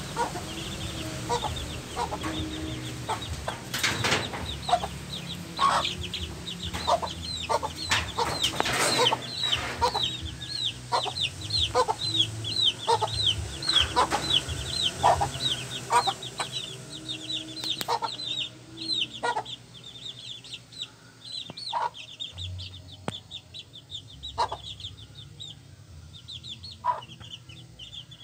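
A brood of young chicks peeping in quick, high, down-slurred cheeps, with a hen clucking among them. The peeping thins out about two-thirds of the way through.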